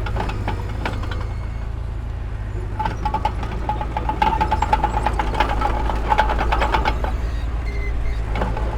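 Heavy diesel earthmoving machinery running, with a steady low engine rumble and constant clanking and rattling. A high-pitched squeal comes and goes from about three seconds in until about seven seconds.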